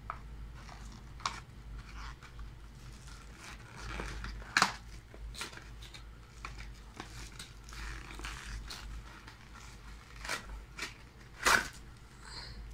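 Cardboard box of an optical mouse being opened by hand: its end flaps pulled open and the inner tray slid out, with irregular scraping, rustling and sharp cardboard clicks. The loudest click comes about four and a half seconds in and another near the end.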